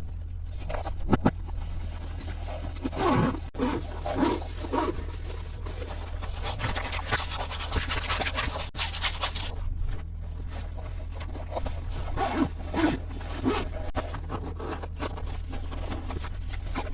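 Toy playset pieces and their packaging being handled and unboxed: irregular scraping, rubbing and light clicks, busiest in the middle, over a steady low hum.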